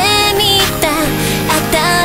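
Japanese pop song playing.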